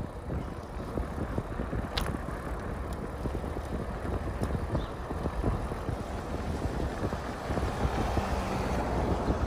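Wind buffeting the microphone over the rumble and small rattles of a bicycle being ridden on asphalt, with one sharp click about two seconds in.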